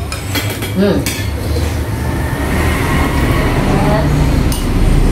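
A steady low rumble runs underneath while spoons clink against ceramic bowls a few times. A short voice sound comes about a second in.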